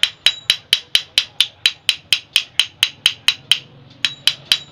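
Rapid metal-on-metal tapping, about four strikes a second, as a steel rod is knocked against a scooter's centrifugal clutch shoe assembly, each tap ringing briefly. The tapping pauses about three and a half seconds in, then starts again.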